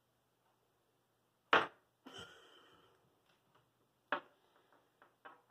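A small toy batted along a tile floor and under a door: a sharp knock about a second and a half in, followed by a short noisy slide, then a few light clicks and another sharp knock around four seconds in.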